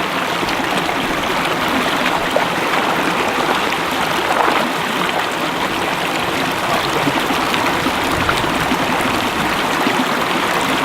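Creek water flowing steadily, a constant rushing babble.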